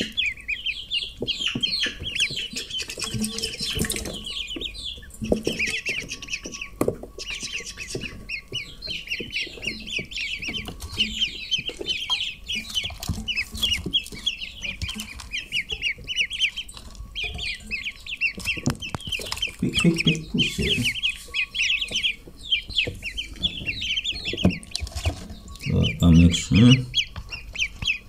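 A crate full of six-day-old ducklings peeping continuously, many fast, high chirps overlapping one another, with scattered light taps and a couple of duller bumps near the end.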